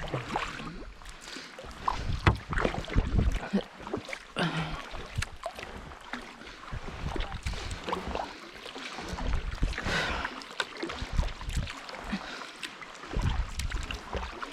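Sea kayak paddling: paddle blades dipping and splashing through the water in an uneven rhythm, with scattered sharp knocks and wind buffeting the microphone.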